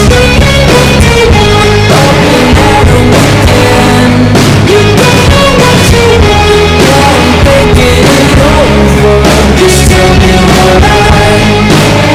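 Background rock song with a steady beat and a singing voice.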